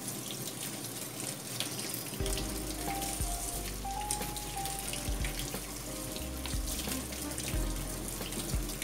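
Kitchen tap running onto hands as they rinse shiitake mushrooms and squeeze the water out of them, water splashing into the sink, with background music.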